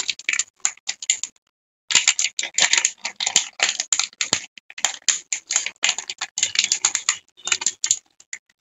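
Handling noise: rapid, irregular clicking and crackling, with a short break about a second and a half in.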